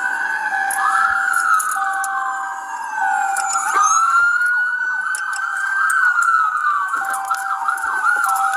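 Police car sirens wailing, with more than one siren sweeping up and down across each other. Near the end they switch to a faster yelp.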